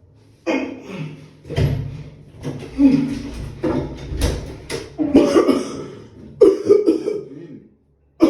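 A man coughing hard and repeatedly: a long run of harsh, sudden coughs in quick succession that stops shortly before the end. The coughing is feigned, part of a fake coughing-up-blood prank.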